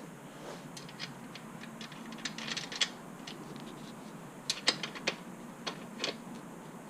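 Scattered metallic clicks and short ratchety clatters of axle spacers and nuts being fitted back onto the rear hub-motor axle of an electric bike.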